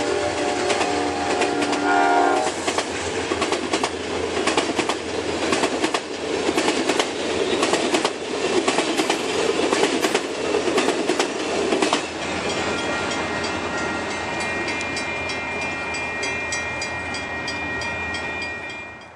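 Amtrak passenger train passing close: the diesel locomotive's multi-note horn sounds and stops about two and a half seconds in, then the bilevel cars' wheels clatter over the rail joints. About twelve seconds in the clatter gives way to a steady ringing from the grade-crossing bell.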